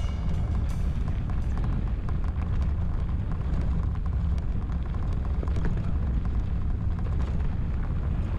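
Wind buffeting the microphone while mountain biking on a dirt trail: a steady low rumble, with scattered small clicks and rattles from the bike and the trail surface.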